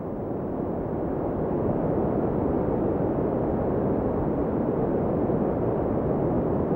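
Sea surf: a steady rushing of water that grows louder over the first two seconds, then holds even.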